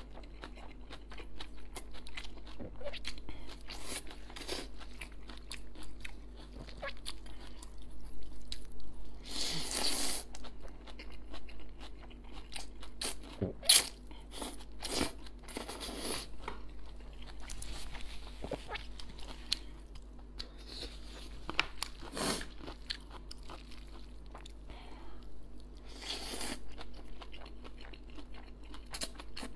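Close-miked mouth sounds of a person eating wide stir-fried noodles: steady wet chewing and small mouth clicks, with a few louder slurps as strands are drawn in, around 10 s, 16 s and 26 s.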